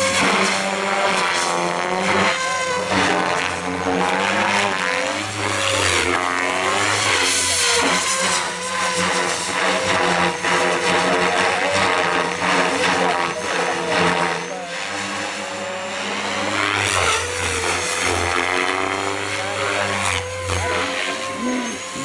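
Radio-controlled Goblin 700 helicopter with a three-blade main rotor in flight. Its whine and rotor noise sweep up and down in pitch as it manoeuvres and passes.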